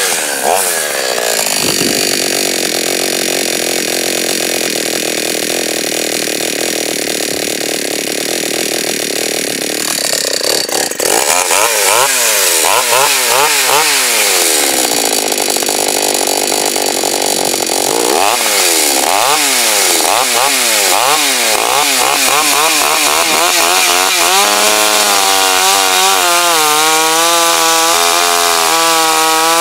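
Two-stroke petrol chainsaw run at steady full throttle through a cut, then revved up and down in repeated blips, held steady again for a few seconds, and near the end dropping to a lower, wavering idle.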